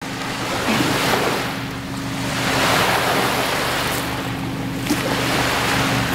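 Small lake waves breaking and washing up a sand-and-pebble shore, the wash swelling and fading every second or two, with a steady low hum underneath.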